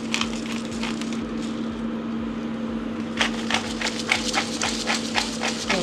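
Quick, regular tapping of a kitchen utensil, about four sharp clicks a second starting about three seconds in, over a steady hum.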